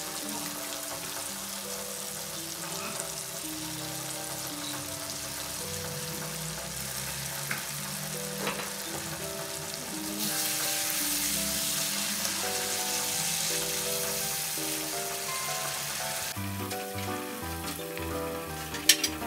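Red chili spice paste sizzling as it fries in oil in a wok, the sizzle growing louder from about ten seconds in. Near the end a few sharp knocks as fried crispy bits and peanuts are tipped in from a plate.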